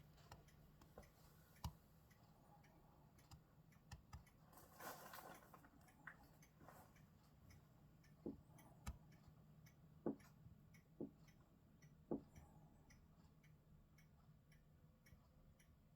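Faint, regular ticking about twice a second over a low steady hum, with a few louder knocks now and then.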